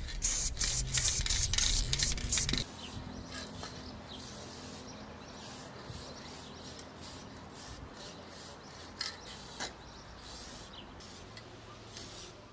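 Aerosol spray paint can hissing in short on-and-off bursts against a wall, close and loud at first, then fainter after about two and a half seconds.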